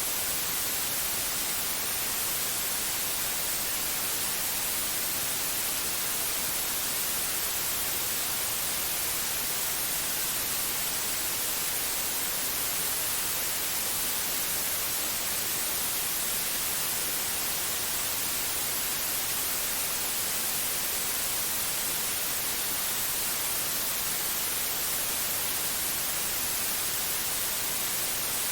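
Steady white noise: a constant, even hiss that does not change, brightest in the highest treble.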